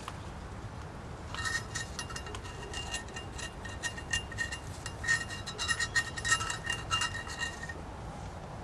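Rapid, uneven metallic clicking with a light ringing tone, starting about a second in and stopping near the end.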